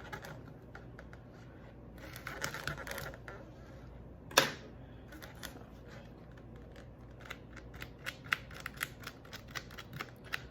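Tweezers snapping shut in irregular small clicks as hairs are plucked one by one from a wig's lace frontal, quickening near the end. One much louder click comes about four seconds in.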